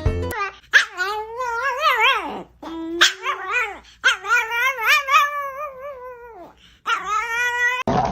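A dog vocalizing in a run of long, warbling howl-like calls whose pitch wavers up and down. The longest call lasts about two and a half seconds, and short gaps separate the calls.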